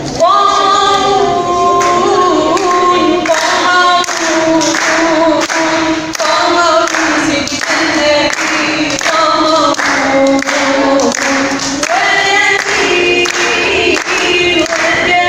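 Arabic nasheed sung with long, held and ornamented notes that glide between pitches, over a layered, choir-like vocal backing with a regular beat.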